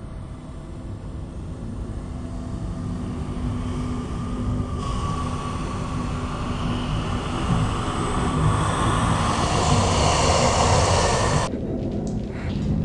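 Film sound-design rumble: a low, steady rumbling noise that swells gradually louder and fuller, then cuts off abruptly near the end, followed by a few sharp knocks.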